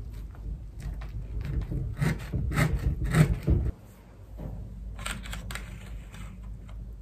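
Knife cutting through a pie's crisp crust, crunching and scraping against the metal pie tin in a dense run of clicks and scrapes, then a few lighter clicks.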